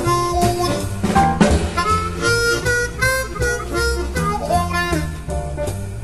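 Background music: a melody of held notes over a steady rhythmic accompaniment.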